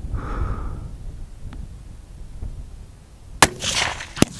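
A single .308 target rifle shot, sharp and sudden, about three and a half seconds in, after a quiet stretch of wind on the microphone. A short rustle and a second sharp click follow just after it.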